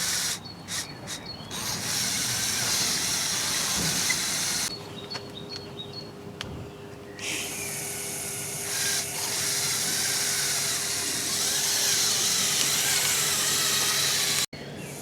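The small electric motors of a Lego Technic RC off-road jeep whine and hiss as it drives, their pitch wavering with speed. The whine stops and starts several times, with short breaks near the start and a longer one around the middle.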